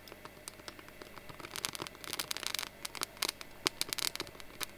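Dry cedar needles crackling as a lighter flame is held to them. The crackles are sparse at first and come thick and fast from about a second and a half in, as the needles start to catch.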